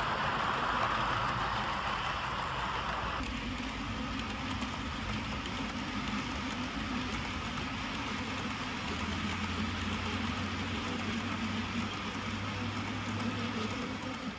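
OO gauge model trains running on the layout. First comes a rushing rolling noise as model HST coaches pass. After a cut about three seconds in, it changes to a steadier low engine-like drone as a freight train goes by, with a deeper steady hum joining about nine seconds in.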